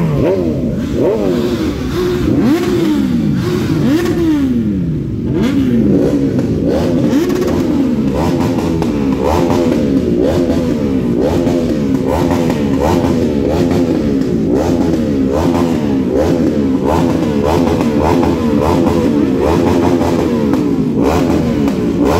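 Several sport motorcycles revving their engines over and over, the overlapping engine notes sweeping up and falling back. The first few seconds hold slower, longer revs; after that come quick throttle blips about once or twice a second.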